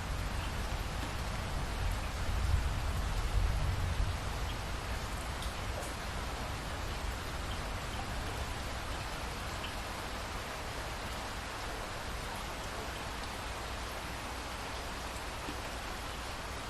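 Steady rain falling, an even hiss of drops, with a low rumble of thunder in the first few seconds that dies away.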